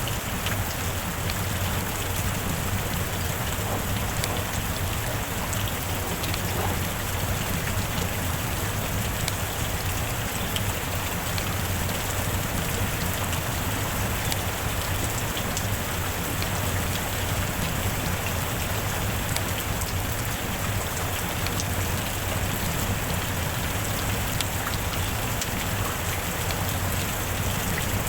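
Heavy rain falling steadily, with many scattered sharp drop ticks over an even hiss.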